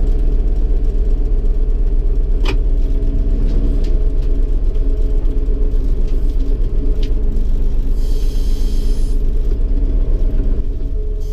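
Combine harvester's diesel engine running steadily, heard from inside the cab as the machine creeps up to a header. A sharp click comes about two and a half seconds in, and a brief hiss about eight seconds in.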